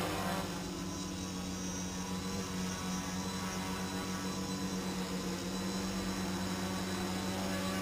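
Quadcopter's electric motors and propellers hovering: a steady buzzing hum, dropping a little in level about half a second in.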